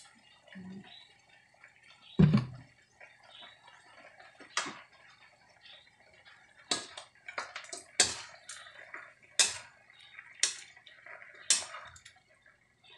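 Metal ladle stirring pieces of pork belly in an aluminium wok, clacking and scraping against the pan in a run of short sharp knocks. A single dull thump, the loudest sound, comes about two seconds in.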